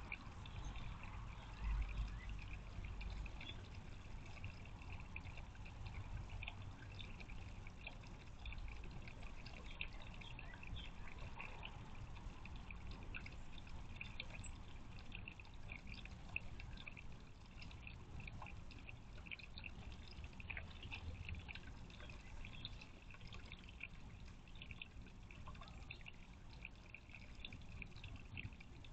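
A thin stream of water from a stone fountain figure's spout trickles and pours steadily into a concrete birdbath basin. A brief low rumble comes about two seconds in.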